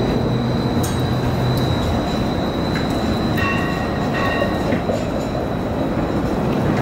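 Battery-electric streetcar running on its rails, with a steady thin high whine throughout. Two short electronic beeps sound about halfway through.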